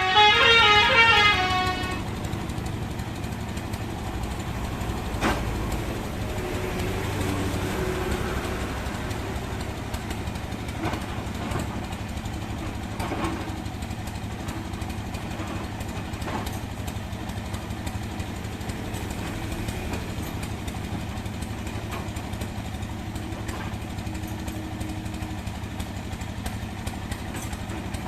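Remote-control toy excavator running: a steady mechanical buzz and hum with a few sharp clicks. A short series of stepped tones sounds in the first two seconds.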